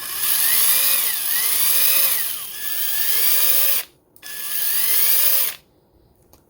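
Ryobi P263 ONE+ 18V brushed 3/8-inch cordless impact wrench running free with no load at its second speed setting. The motor whine rises and falls in pitch as the trigger is worked. It stops about four seconds in, runs again briefly, then stops about a second before the end.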